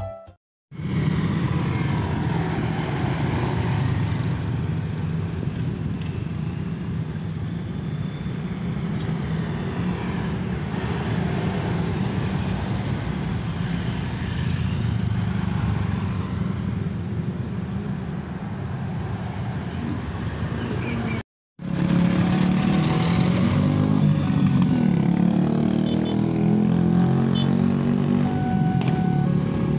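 Passing road traffic: motorcycles, cars and light trucks drive by with engines running and tyres on the road. After a brief cut about two-thirds of the way in, a heavy truck's engine sounds louder and nearer as it pulls across.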